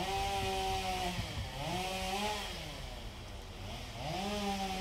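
Chainsaw running, its engine pitch rising and dropping several times as it is revved and eased off.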